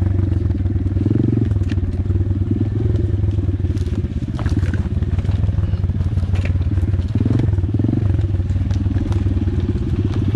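Pit bike's small single-cylinder four-stroke engine running at low, fairly steady revs with small swells of throttle, crawling over rough ground. Several sharp snaps and crackles of twigs and dead branches breaking under the tyres cut in along the way.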